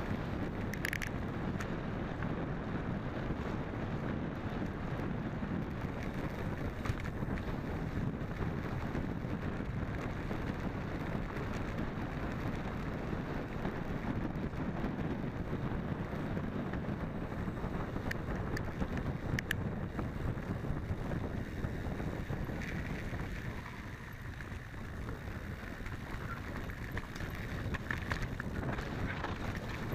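Wind rushing over the microphone of a camera on a mountain bike riding dirt singletrack, mixed with the rattle of the tyres and bike over the rough ground. A couple of sharp clicks, about a second in and about two-thirds of the way through.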